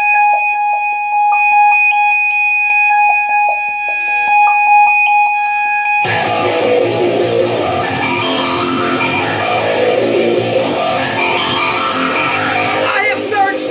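Rock song intro on electric guitar: for about six seconds a steady high ringing tone holds with single plucked notes over it. Then the full band comes in at once, with loud distorted guitar, bass and fast, even drum strokes.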